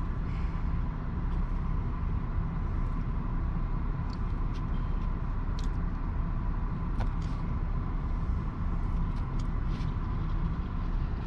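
2013 Chevy Impala running with a steady low rumble, with a few faint scattered clicks.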